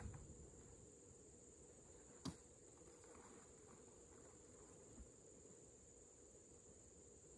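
Steady high-pitched insect chorus, with a few faint thuds from heavy oil palm fruit bunches landing in a truck bed, the clearest about two seconds in.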